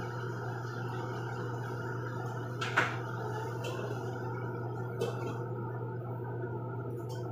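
Steady kitchen hum and hiss while food cooks on the stove, with one sharp clack of a utensil or pot about three seconds in and a lighter one about five seconds in.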